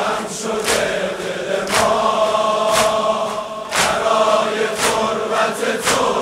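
Large crowd of men chanting a Shia mourning refrain in unison, with rhythmic chest-beating (sineh-zani): sharp group hand-slaps about once a second.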